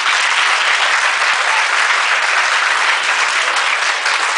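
Audience applauding: loud, dense, steady clapping from many hands.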